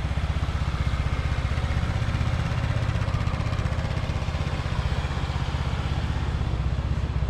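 Motolux MTX 125 scooter's 125 cc engine running steadily at low revs, then switched off right at the end.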